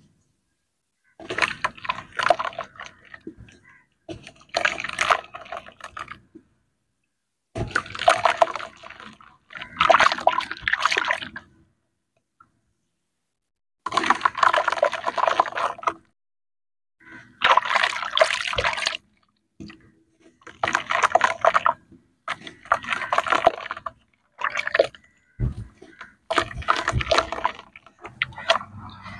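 Muddy water sloshing and splashing in a plastic tub as hands squeeze, break and crumble lumps of wet red dirt. It comes in bursts of a second or two, with brief silences between.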